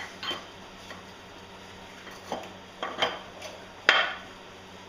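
Steel special tool clinking against the propeller shaft and retaining nut of a MerCruiser Bravo 3 lower unit as it is worked over the nut: several sharp metallic clinks, the loudest about four seconds in.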